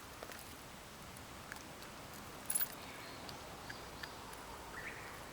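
Small metallic clicks and a brief clatter about two and a half seconds in: the treble hooks of a topwater lure clinking as a freshly landed bass is handled. Faint chirps sound over quiet pond-side air.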